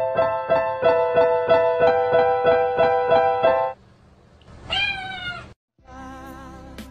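Digital piano keys pressed by a cat's paws: a quick run of evenly repeated notes that stops abruptly about three and a half seconds in. About a second later the cat gives a single meow.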